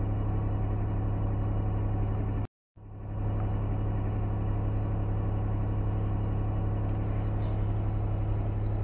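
2015 Dodge Grand Caravan's 3.6-litre V6 running at a steady fast idle of about 1,200 rpm, heard from inside the cabin, with the engine still stone cold after a start at -24 °C. The sound drops out for a moment about two and a half seconds in.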